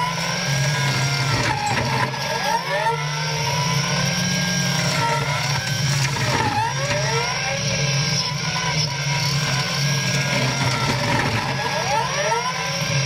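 Caterpillar 297C compact track loader's diesel engine running under load, driving a front-mounted hydraulic rotary brush cutter into large bushes. About three times the pitch dips and recovers as the cutter takes the brush.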